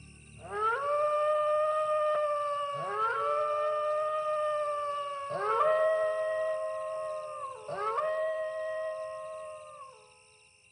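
Four long howls in a row, each sliding up into a held note for about two seconds before dropping away, with a shorter, fainter one near the end.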